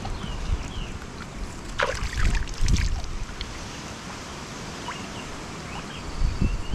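Water sloshing and splashing as hands are washed, with a few sharper splashes about two to three seconds in and wind buffeting the microphone near the start and end.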